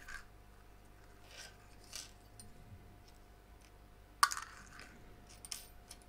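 Small parts and a plastic cup being handled and set down on a 3D printer's bed: soft handling noises, then one sharp clink about four seconds in, followed by a few lighter ticks.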